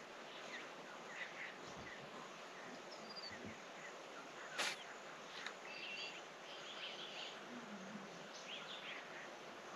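Faint outdoor ambience of a steady insect hiss with scattered short bird chirps, and a single sharp click about halfway through.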